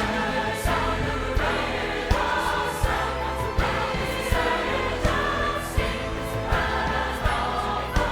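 Choir singing with instrumental accompaniment over a strong bass and a steady beat, a sharp hit about every three-quarters of a second.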